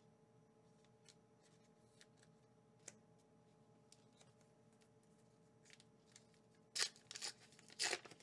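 Small ticks of trading cards being handled, then near the end two short loud rips of a plastic Pokémon promo pack being torn open, over a steady faint hum.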